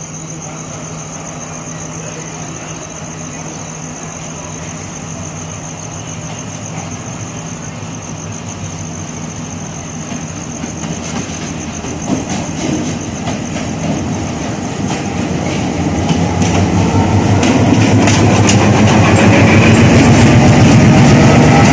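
Passenger train pulling out of a station, heard from aboard. A steady hum at first, then wheels clicking over rail joints from about halfway. The running noise grows much louder with a rising whine as the train gathers speed.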